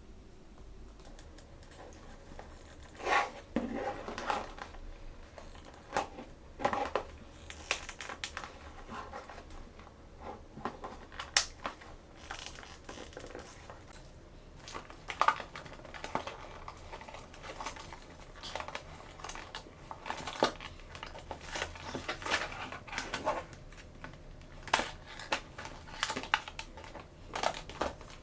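Packaging being opened by hand: plastic crinkling and tearing, with irregular sharp clicks and taps from small plastic toy pieces.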